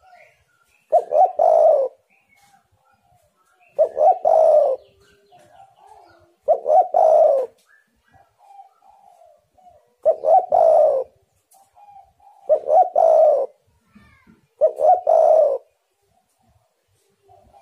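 Spotted dove cooing: six loud coos of about a second each, a few seconds apart, with softer calls between them.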